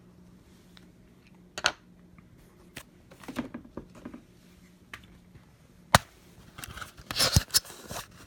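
Small hand tools and parts being handled on an opened iPad mini: scattered light clicks and scrapes, one sharp click about six seconds in, and a short bout of crinkly scraping near the end, over a faint steady hum.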